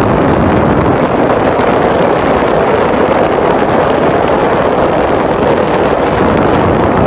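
Steady rushing wind noise on the microphone over the drone of a motorboat running underway.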